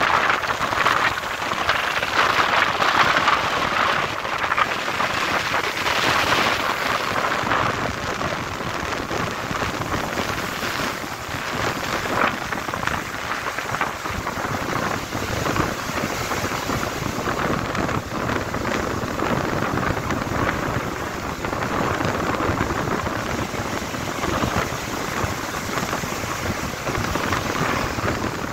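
Ocean surf breaking and washing up the beach: a continuous rushing of waves and foam, a little louder in the first several seconds.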